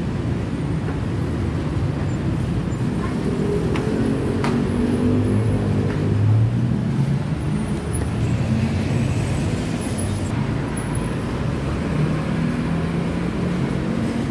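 Steady low rumble of passing city vehicles, swelling about four to seven seconds in, with a few faint clicks.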